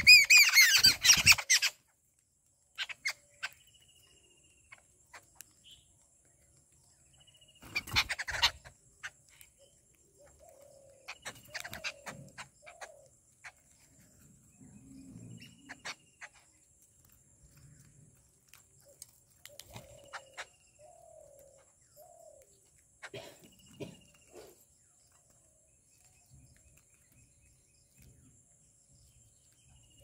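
A flock of babblers at a feeding spot: a harsh burst of chattering calls right at the start and another about eight seconds in, then scattered sharp clicks of beaks pecking at food and short, faint bird calls.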